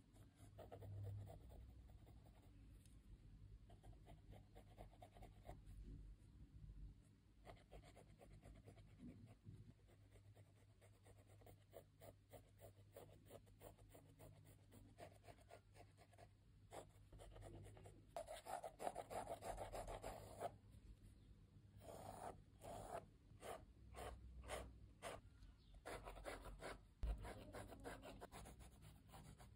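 Mechanical pencil with 2B lead scratching across sketchbook paper in short, rapid hatching strokes. Faint, with quicker, louder runs of strokes about two thirds of the way through.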